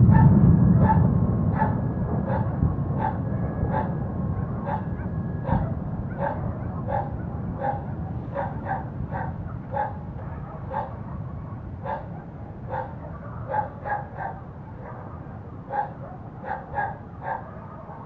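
Dogs barking repeatedly, a bark every half-second or so, over the low rumble of an ammunition-depot explosion that fades away over the first several seconds.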